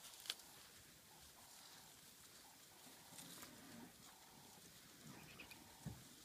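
Near silence with faint sounds of elephants close by: soft low sounds a few seconds in and again near the end, and one sharp click about a third of a second in.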